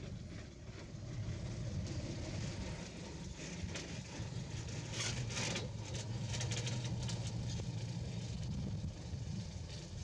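A steady low engine hum, with a run of short clicks and rustles about five to seven seconds in.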